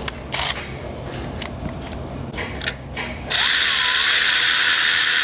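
A few light clicks and knocks of parts being handled, then a power ratchet or driver runs steadily for about three seconds, turning the small screws that hold the ignition coils on the coil pack.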